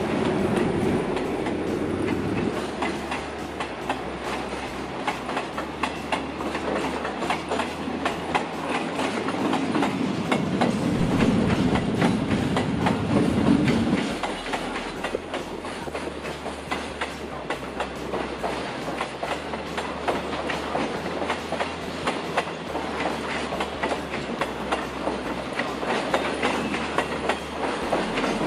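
Freight train of State Railway of Thailand container flat wagons rolling past at steady speed, wheels clattering over the rail joints in a continuous clickety-clack over a low rumble. The rumble swells about ten seconds in and drops away sharply about fourteen seconds in.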